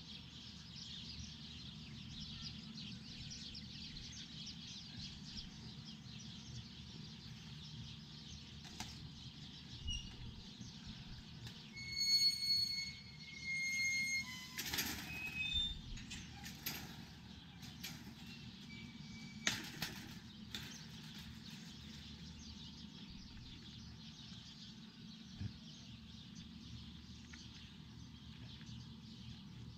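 Birds chirping and calling outdoors. About twelve seconds in, a louder bird call of flat, high, clear notes sounds twice. A few sharp knocks follow a little later.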